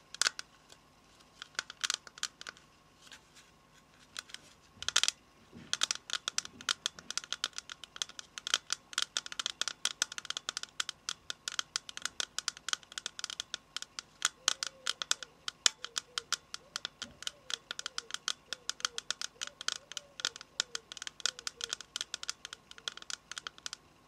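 Fingernails tapping on a hard surface: sharp clicks, scattered at first, then in quick, near-continuous runs of several taps a second from about six seconds in.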